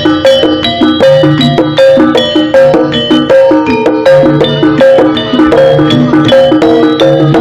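Live jaranan ensemble music: a fast run of struck, ringing metal gong-chime notes over drums, playing without a break.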